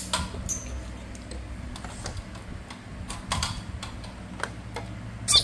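Scattered, irregular light clicks and taps of small toys being handled and moved around, over a faint steady hum.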